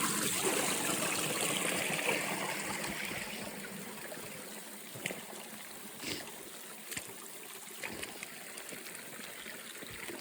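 A small creek waterfall trickling and splashing, fading over the first few seconds. After that the water is fainter, with a few soft knocks, about one a second.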